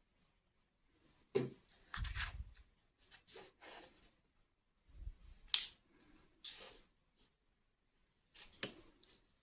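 Toy pieces being handled and unpacked: a sharp click, then several short bursts of rubbing and scraping a second or so apart.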